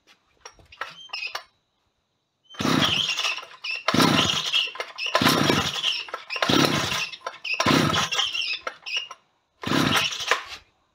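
A few light clicks, then about six pulls on the recoil starter of a Stihl 010 AV chainsaw, one every second or so. Its small two-stroke engine turns over with each pull but does not start. The carburetor has just been swapped on and its high- and low-speed screws set to about one turn out.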